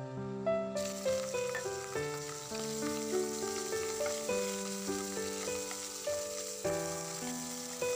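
Raw prawns sizzling as they fry in hot oil in a wok, with the sizzle starting about a second in, over background piano music.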